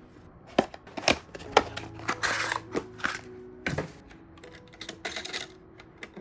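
Computer hardware being handled during assembly: irregular clicks and knocks of parts and tools, with short rustling scrapes about two seconds in and again about five seconds in, over faint background music.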